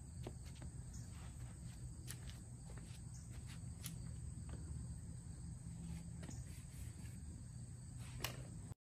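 Quiet outdoor ambience: a steady low rumble with scattered light clicks and footsteps on pavement, and a slightly sharper click near the end as the trike is handled. The sound cuts off suddenly at the very end.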